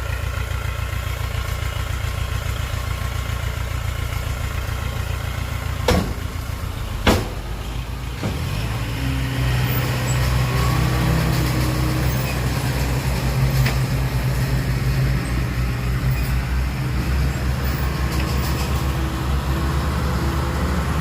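Heavy diesel engine of construction machinery running steadily, with two sharp knocks about a second apart some six seconds in; after about eight seconds the engine note grows heavier and stronger, as under load.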